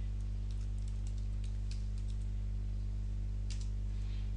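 Computer keyboard keystrokes, a few scattered taps, as a line of code is typed. They sit over a steady low electrical hum that is louder than the taps.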